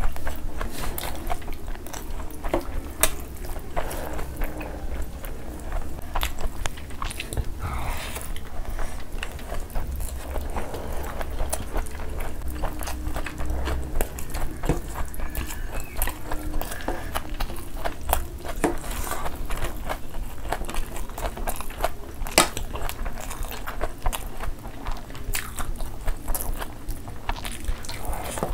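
Close-miked eating sounds: chewing and mouth smacking of rice and mutton curry eaten by hand, with many small wet clicks and squishes as handfuls of rice and gravy are mixed and squeezed.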